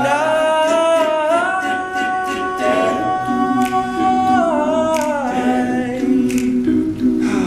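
Male a cappella group singing without instruments: a high voice holds one long note that slides up about a second in and falls back down around the middle, over sustained backing harmonies. Short clicks keep time in the second half.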